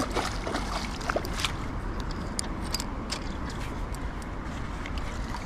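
Steady rush of flowing river water, with scattered light clicks and ticks over it.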